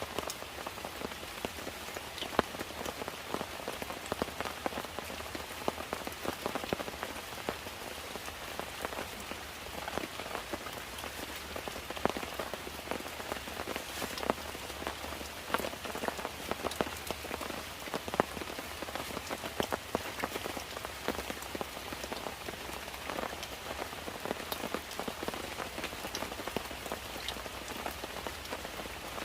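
Steady rain falling, with many individual drops heard as sharp, irregular taps over a constant hiss.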